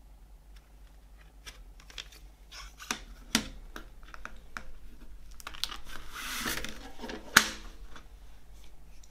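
Plastic CD jewel case being handled: light clicks and taps, two sharp clicks about three seconds in as the case is opened, a brushing rustle, then a loud snap about seven seconds in as the lid is shut.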